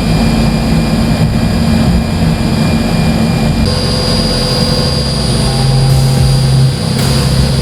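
CNC milling machine roughing out a block of aluminium: a steady spindle whine over a low hum, with the whine changing pitch about halfway through.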